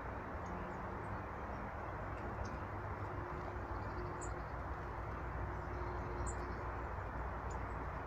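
Steady low outdoor rumble with faint, short, high-pitched calls of small birds scattered through it, a few single chirps a second or two apart.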